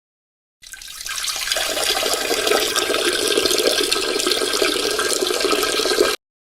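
Steady watery gurgling rush that swells up over the first second, holds, and then cuts off abruptly.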